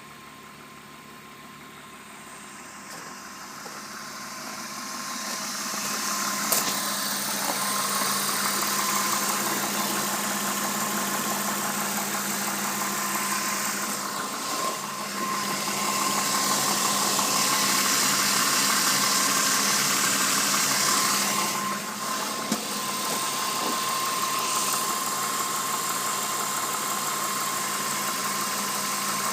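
BMW M52B20 2.0-litre inline-six engine running steadily with a strange rattling, knocking noise whose source the owner cannot identify. The sound grows louder over the first several seconds, then holds steady.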